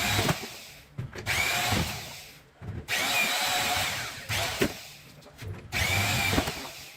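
Power drill driving a wire stripper, run in about four short bursts; each starts sharply and fades as the motor winds down, as lengths of insulated copper wire are fed through and stripped.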